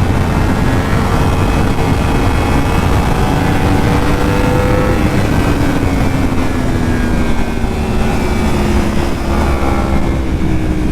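Yamaha R1's 1000cc inline-four engine pulling through the gears on a wet track, its note rising gradually for about five seconds and then falling slowly as the throttle eases, over steady wind and road noise.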